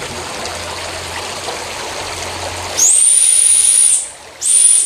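Water from a pool's rock waterfall feature splashing steadily into the pool. About three seconds in, a loud, very high-pitched whistle starts with a quick upward slide and holds for about a second, then sounds again briefly near the end.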